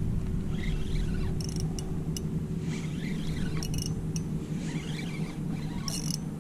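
Fishing reel and rod being worked, with faint squeaks and a few light clicks over a steady low rumble.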